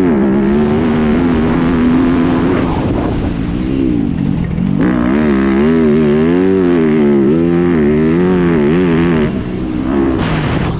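Motocross dirt bike engine heard from on board, revving up and down as the throttle is worked. Its pitch rises and falls rapidly through the middle, eases off briefly near the end, then climbs sharply again.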